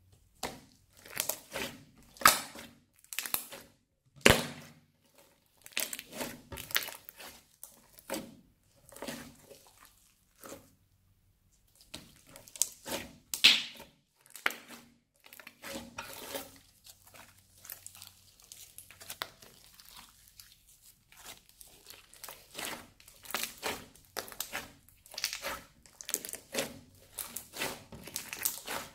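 Crunchy slime mixed with small beads being squeezed, stretched and pressed by hand: irregular crackling and squishy popping, one or two bursts a second, with a couple of short pauses. The loudest snaps come about four and thirteen seconds in.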